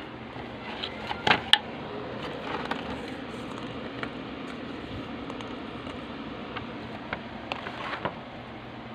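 Light clicks and taps of plastic table tennis balls being handled and set down on a tabletop, the sharpest two coming close together about a second and a half in. A steady hum runs underneath.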